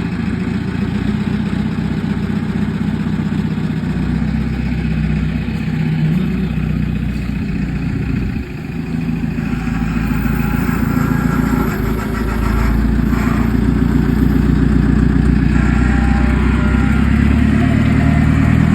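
Two-stroke chainsaw engine running continuously. It dips briefly about halfway through and runs louder from about two-thirds of the way in.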